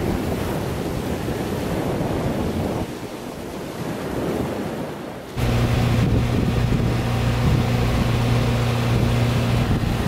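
Surf washing and wind buffeting the microphone, then about five seconds in an abrupt switch to a boat's engine running steadily with a low, even hum.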